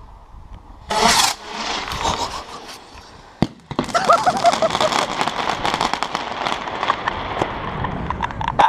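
Fireworks going off and echoing inside a concrete cooling tower. A loud bang comes about a second in, with a long echoing tail, and a sharp crack follows at about three and a half seconds. After that there is dense crackling with many small pops.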